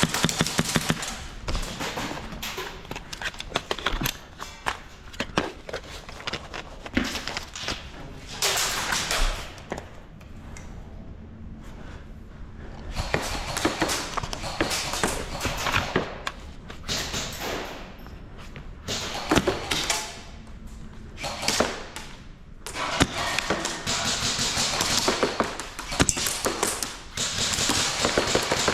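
Irregular taps, thuds and knocks with stretches of rustling noise from a player moving about during airsoft play.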